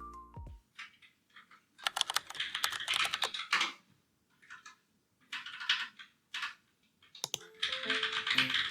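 Typing on a computer keyboard: three runs of quick key clicks separated by short pauses. Soft background music fades out at the start and comes back in near the end.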